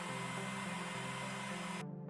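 Electronic background music with a steady bass line under a loud, even hiss that cuts off suddenly just before the end, after which only the music with light ticking beats remains.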